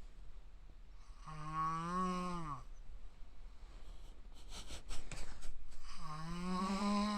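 A man snoring loudly in deep sleep: two long, pitched, shriek-like snores about four seconds apart. Each rises a little and then drops away at its end. Between them come a few short, rough breaths.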